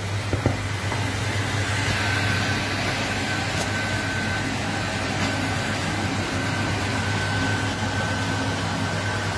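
Steady stovetop cooking noise: a pot of pasta at the boil and broccoli cooking in a frying pan, a constant low hum with a hiss over it. A faint high whine runs through the middle.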